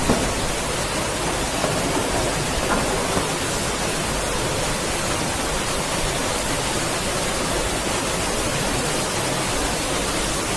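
Steady, even hiss of background noise with a faint low hum underneath, unchanging throughout.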